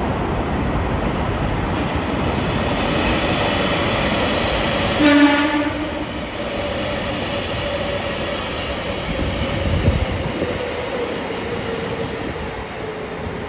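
JR Kyushu 787 series electric train running past with a steady rumble, a short train horn blast about five seconds in. A faint whine slowly drops in pitch through the rest of the pass.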